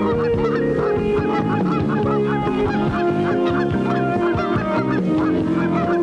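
A flock of geese honking, short calls coming several a second, over music with long held notes.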